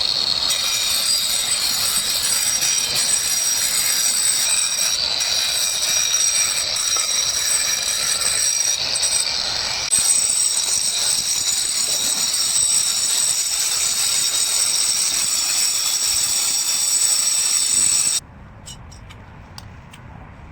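Angle grinder running with a steady, high-pitched whine that cuts off suddenly about eighteen seconds in.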